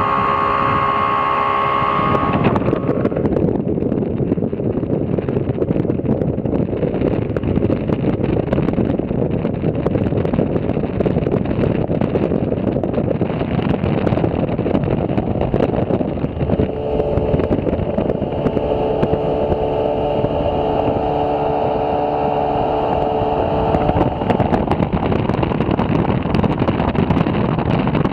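Twin outboard motors running at speed on a small boat underway, under a heavy rush of wind and water noise on the microphone. The engines' steady whine stands out for the first couple of seconds and again for several seconds in the second half.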